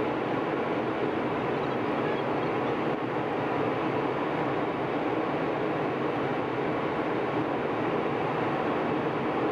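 Steady cabin noise of a jet airliner in flight, the engines and rushing air heard from inside the cabin as an even, unbroken drone.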